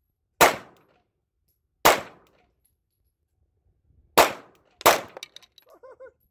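Semi-automatic pistol fired four times at an uneven pace, with two shots close together near the end; each shot is a sharp crack that dies away quickly.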